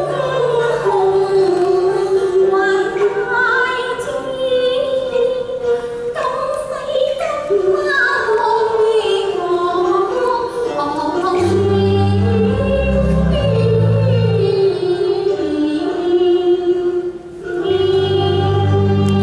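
A female Cantonese opera singer sings a slow aria in long, sliding, ornamented notes over instrumental accompaniment. Low held instrumental notes come in about halfway through, break off briefly, and return near the end.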